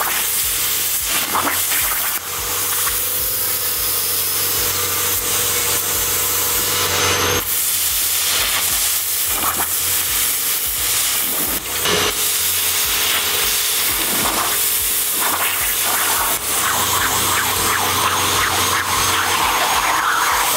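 CNC plasma torch arc cutting quarter-inch copper plate: a loud, steady hiss of the arc and cutting air, with a steady tone under it for about the first third. On quarter-inch aluminum settings with a 65 A tip the arc does not have enough heat input to cut through the copper.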